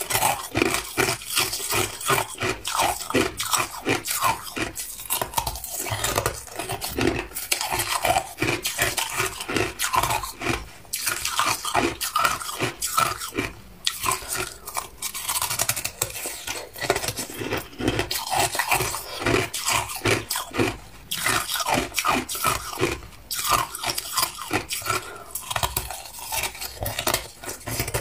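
Hard crushed ice being bitten and chewed: a fast, continuous run of crisp crunches, with a few brief pauses.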